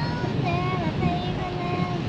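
A song playing on the car stereo: a singing voice holding long, wavering notes, over the steady road and engine noise inside the moving car.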